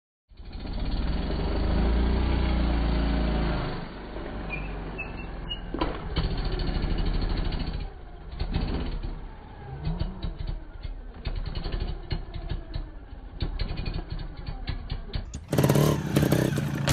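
Trial motorcycle engine running steadily for the first few seconds, then an irregular series of short, sharp throttle blips and knocks as the bike is hopped along concrete pipes.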